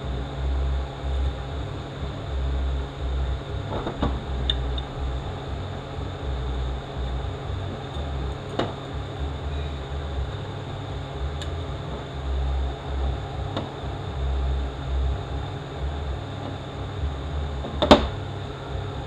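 Light metallic clicks and clinks of small transmission pump parts being handled and set down on a steel workbench, with one sharper click near the end. A steady low hum, swelling and fading every second or two, runs underneath.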